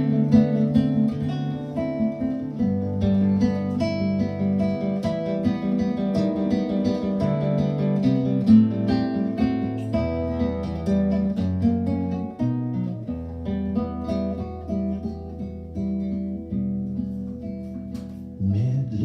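Acoustic guitar playing an instrumental interlude of picked notes over changing bass notes, getting sparser and softer towards the end.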